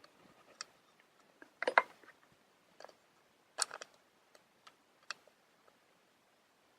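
Small plastic clicks and taps from smartphone parts being handled and pressed together, a handful of sharp ones scattered through, the loudest about two seconds and three and a half seconds in.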